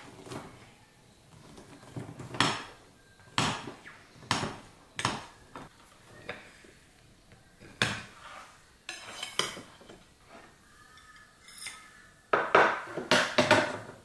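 Table knife cutting a pecan pie, its blade clicking and scraping against the plate in separate strokes. Near the end, a quick run of louder plate and cutlery clatter as a slice is lifted onto a side plate.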